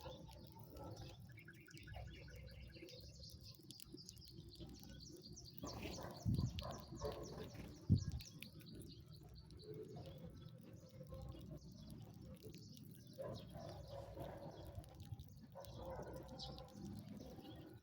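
Sparrows chirping softly, with quick runs of high chirps in the first half and scattered calls after. Two short low thumps come near the middle.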